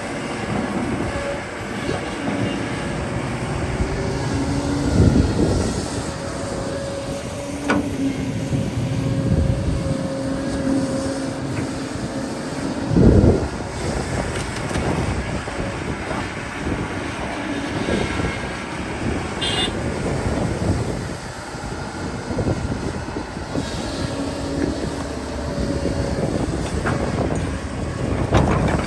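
Excavator's diesel engine running under load with a steady drone, broken by irregular heavy thuds and clanks, the loudest about 13 seconds in.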